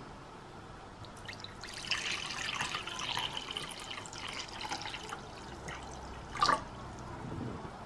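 Cold water poured into a glass bowl, splashing. Near the end comes a single short, sharp knock, the loudest sound.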